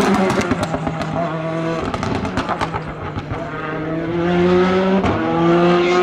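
Hill-climb race car engine coming off the throttle, with a run of sharp pops, then revving up under acceleration. The engine note dips once about five seconds in at a gear change.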